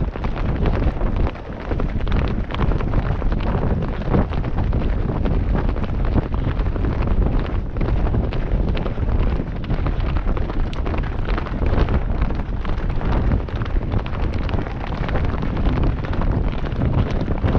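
Heavy wind buffeting a camera microphone on a galloping horse, a continuous low rumble, with many rapid thuds and knocks from hooves striking the dirt track mixed in.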